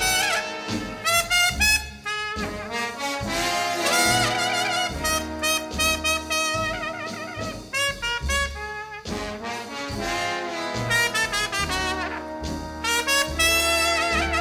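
Instrumental jazz orchestra passage with no singing: trumpet and trombones play over the band, with bass notes below.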